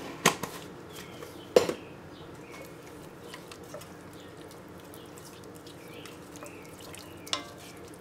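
A wooden spoon stirs thick, chunky tomato sauce in a stainless steel saucepan, with soft scraping and swishing. A few sharp knocks come from the spoon hitting the pot, the loudest about a second and a half in and another near the end.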